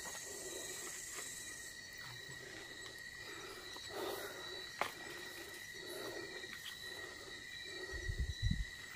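Crickets trilling steadily in night forest, with a soft low sound repeating about once a second. A single click about five seconds in, and a few low thumps of movement near the end.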